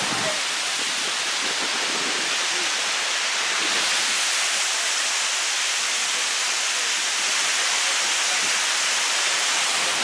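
Water of a cascade waterfall pouring over stepped rock ledges close by: a steady, even rushing.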